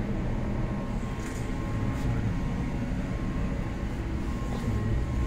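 Basement heating equipment running: a steady low rumble with a faint steady hum, and a few faint clicks.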